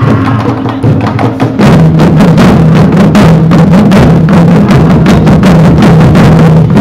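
Taiko drums struck rapidly with sticks by a group of drummers over loud recorded backing music with a steady bass line. About a second and a half in, the drumming and music become louder and fuller.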